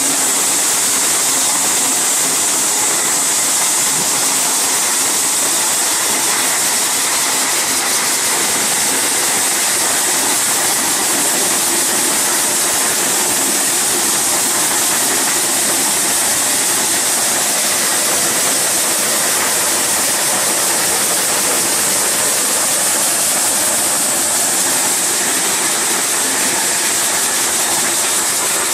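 Tractor-driven multi-crop thresher running while being fed crop: a loud, steady rushing roar of the threshing drum and blower, with grain streaming out.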